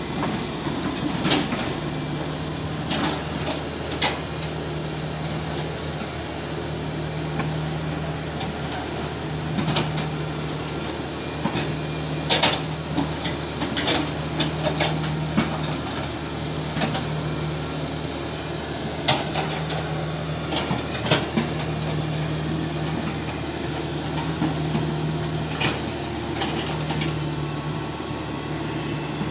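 Excavator's diesel engine running steadily, its low note swelling and easing every second or two, with scattered sharp metallic knocks and clanks from the machine at work.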